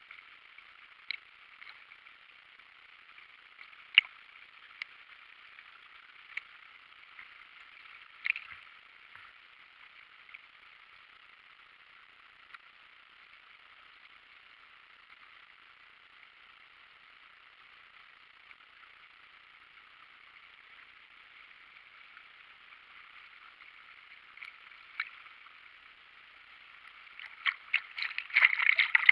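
Steady, faint rushing of a river waterfall, with a few sharp clicks scattered through it. Near the end the water gets louder and choppier, splashing and gurgling.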